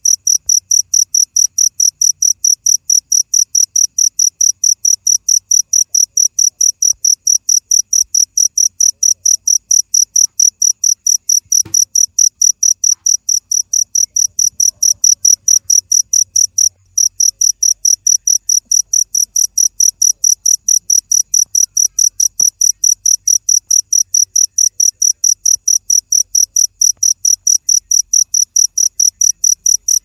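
Cricket chirping in a fast, evenly spaced, high-pitched train, with one brief break in the middle.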